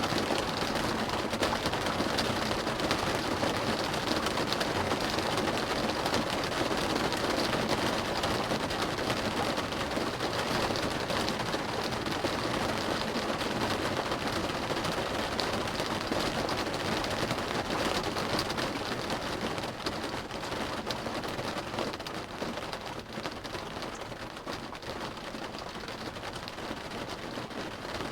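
Rain drumming on a car's roof and windows, heard from inside the cabin: a dense, steady patter of drops that eases a little after about twenty seconds.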